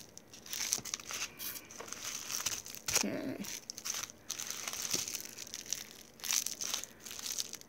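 Packaging crinkling and rustling in irregular bursts as items are unpacked from a box by hand.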